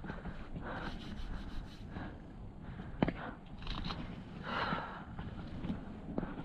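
Hands and shoes scuffing and patting on granite during a scramble, with a sharp tap about three seconds in and another near the end.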